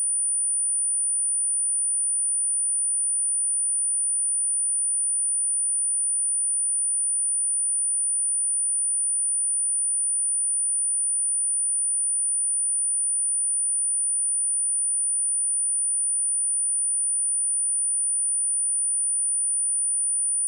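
Pure 9416 Hz sine-wave test tone: one steady high-pitched whistle, unchanging in pitch and level.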